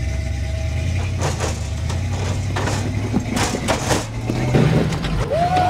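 Off-road truck's engine running under load as it crawls up a rock ledge, with knocks and scrapes of tires and chassis on rock and a rise in revs late on. A long yell from an onlooker starts near the end.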